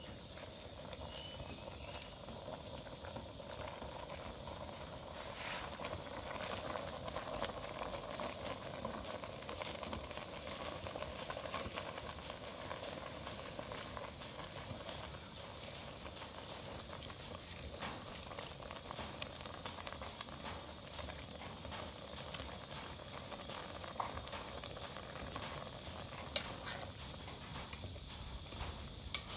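Soup bubbling at the boil in a metal pot, a steady quiet simmer, with small clinks and scrapes of a metal spoon as leafy greens are stirred into the broth.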